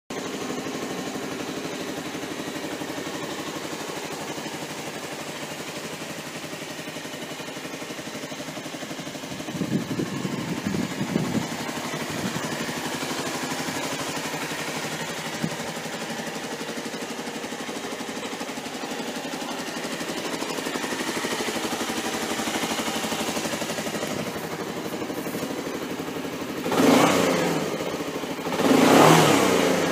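Suzuki Skywave 250 Type S scooter's single-cylinder four-stroke engine idling steadily, louder for a moment about ten seconds in, then revved briefly twice near the end with quick throttle blips.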